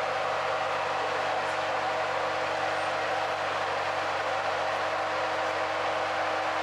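AEV Brute V8 pickup running steadily at a constant low speed: an even engine hum with a steady whine that does not change pitch.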